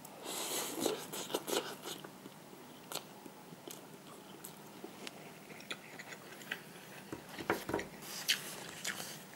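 A person eating instant cup noodles close to the microphone: intermittent chewing and mouth sounds with small sharp clicks, in two busier stretches near the start and near the end.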